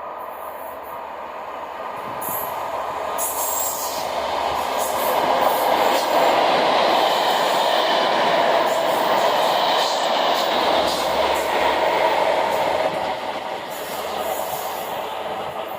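Test train hauled by a pair of Class 73 locomotives passing through, the noise swelling to a peak around the middle and easing off toward the end.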